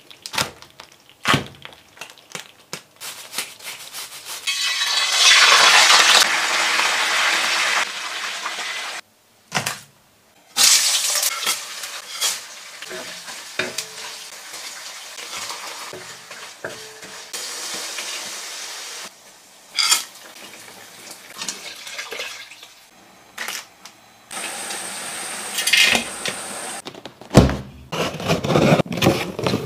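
A run of kitchen handling sounds. Early on, spiny lobster shells click and clatter as the lobsters are picked up. Later, oil sizzles and a wooden spatula scrapes a wok as chilies, garlic and spices are stir-fried, and near the end packing tape is cut and torn on a cardboard box.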